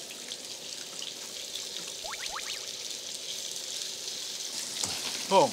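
Beef sirloin sizzling in margarine in a grill pan on a portable gas burner, a steady hiss. A brief rising sound cuts in about two seconds in.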